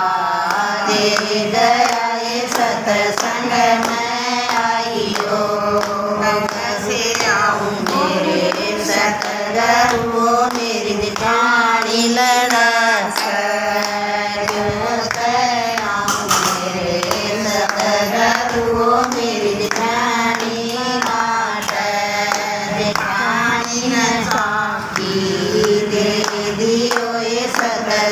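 Group of women singing a Hindi devotional bhajan together, with hand-clapping along with the song.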